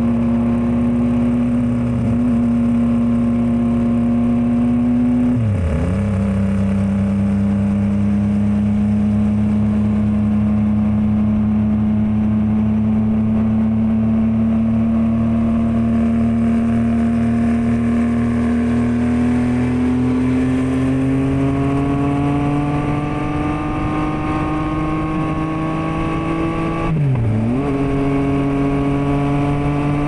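A 2023 Yamaha MT-09's 890 cc inline-three, heard through a Revoc SP carbon full exhaust system, cruising at steady revs. About five seconds in, a quick gear change dips the engine note, which then holds steady before climbing slowly. A second quick shift comes near the end.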